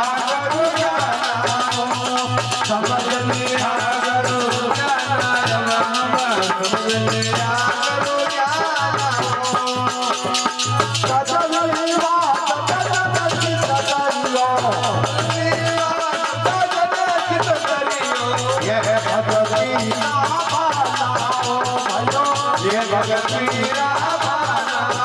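Devotional bhajan music: a constant rhythm of shaken rattle percussion under a wavering melody, over a low steady tone that drops out and returns every few seconds.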